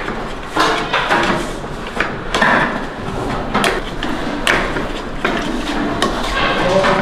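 Irregular knocks and clatter of work in a baklava kitchen, several sharp hits a few seconds apart, with voices in the background.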